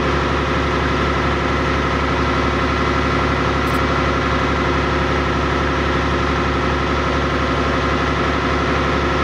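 River ferry's engine running at a steady, unchanging pace.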